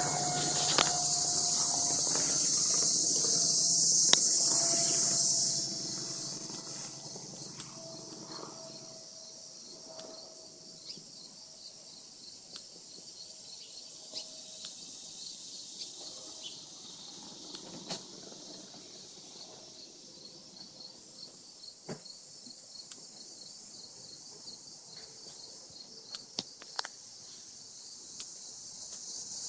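WACO biplane on landing approach making a loud howling whistle: a steady tone that slowly falls in pitch, over its engine noise. Both fade away over roughly the first ten seconds. Insects chirp steadily after that, with scattered clicks.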